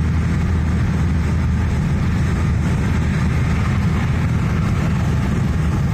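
Steady road noise heard inside a moving car's cabin: a low rumble from the engine and tyres on the pavement, with no sudden events.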